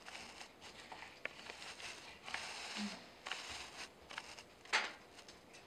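Small kitchen knife peeling and slicing kiwis on a wooden cutting board: faint scraping and light clicks, with one sharper click a little before the end.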